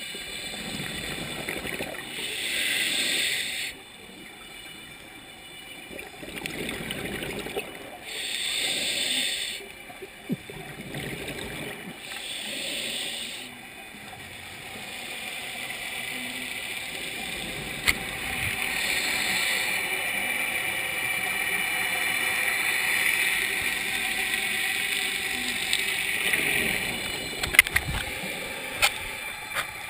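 Scuba regulator exhaust bubbles recorded underwater, rushing out in bursts of about a second and a half every few seconds with the diver's breathing. Through the second half a steadier hiss runs, and a few sharp clicks come near the end.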